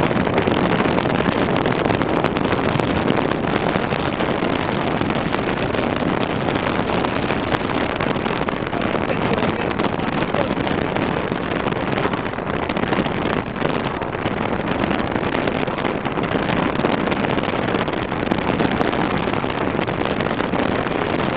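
Steady road and wind noise from a moving car, rumbling on without a break.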